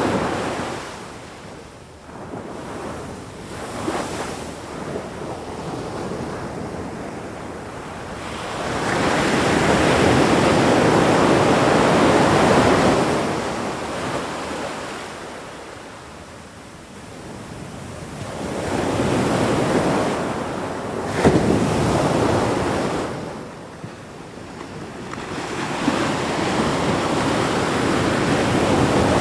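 Ocean waves breaking on a shore in slow surges, each wash swelling and ebbing over several seconds, with a light wind hiss.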